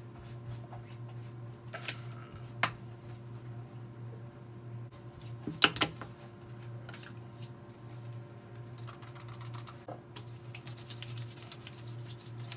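A steady low hum with scattered light clicks and knocks, the loudest pair about six seconds in, and a quick run of ticking near the end.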